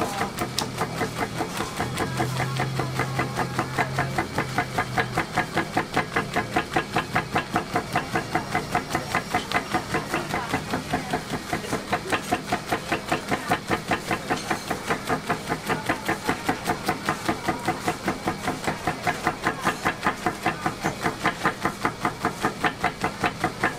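Motorized pounding machine hammering grilled squid flat with its padded head, a steady rapid knocking of about three to four blows a second.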